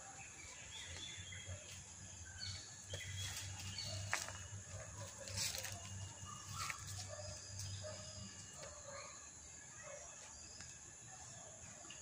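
Quiet outdoor ambience: small birds chirping here and there over a steady high insect drone, with a faint low hum underneath. A few sharp clicks come around the middle.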